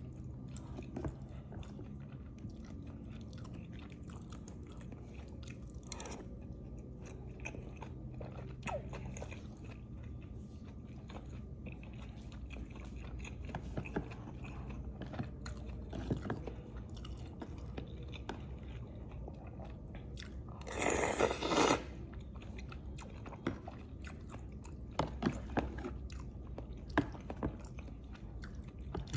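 Close-miked eating sounds: someone chewing and biting into lontong rice cake with green chilies, with many small wet mouth clicks. About two-thirds of the way through there is one louder rushing sound lasting about a second.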